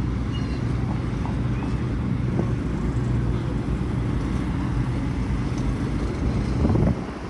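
Steady low rumble of outdoor urban background noise with a constant low hum running under it, swelling briefly louder near the end.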